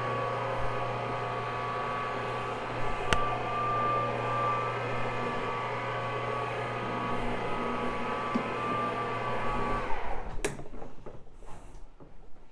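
Electric motor of a rotary carpet-cleaning machine running with a steady hum and whine, then shutting off abruptly about ten seconds in. A single click comes about three seconds in.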